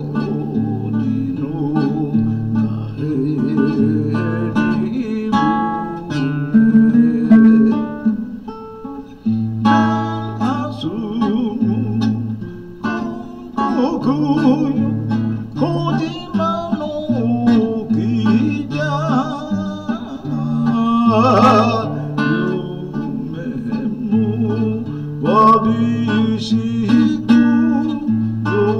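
Classical nylon-string guitar playing a melody of single plucked notes over low bass notes, an instrumental passage of a slow Japanese popular song.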